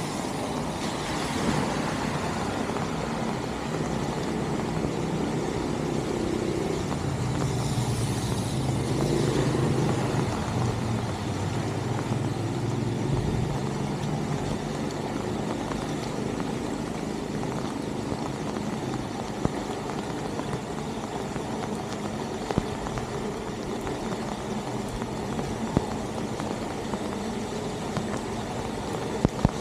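Floodwater pouring steadily into a street storm drain as its grate is cleared of leaves and trash by hand, with rain falling. A low rumble swells and fades about a third of the way through, and a few sharp ticks come near the end.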